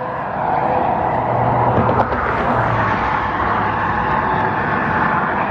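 Steady road and engine noise of a car driving, a continuous rush without breaks.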